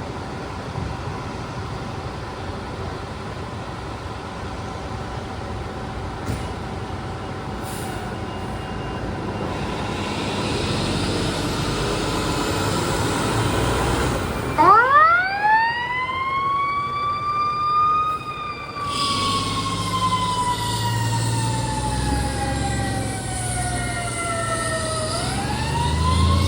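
Fire truck siren winding up about halfway through from a low growl to a high wail, slowly winding down over several seconds, then winding up again near the end. Under it, the truck's engine rumbles.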